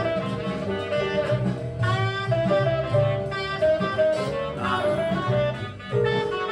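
Recorded small-group jazz playing back: a lead instrument runs a busy melodic line over a bass line that moves from note to note, with a brief drop in level about six seconds in.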